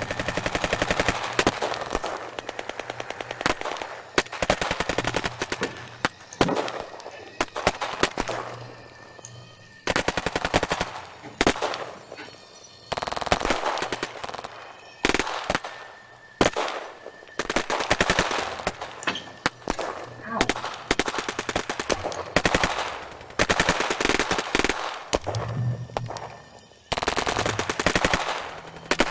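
Battle sound effect of machine-gun fire: repeated bursts of rapid shots, each lasting a few seconds, with fading tails between bursts.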